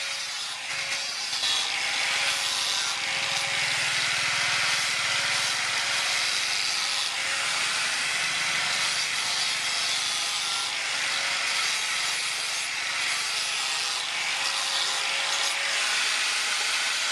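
Steady abrasive grinding from a small power tool working material, with a faint wavering motor hum underneath.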